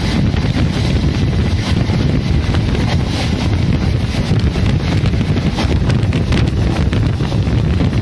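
Heavy wind buffeting the microphone at the open door of a fast-moving express train, over the steady rumble of its wheels on the rails. A parallel train is running alongside on the next track.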